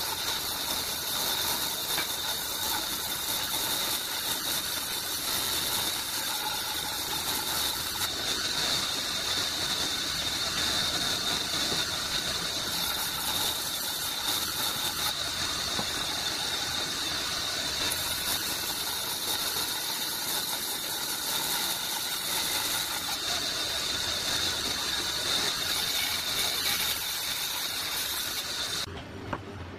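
Bandsaw cutting a thick hardwood board along a curved line: a steady, high-pitched hiss from the blade in the wood. It cuts off sharply near the end.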